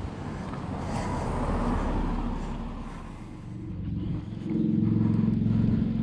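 A motor vehicle passing on the road, its noise swelling and then fading over the first three seconds or so. A steady low droning hum follows from about four seconds in.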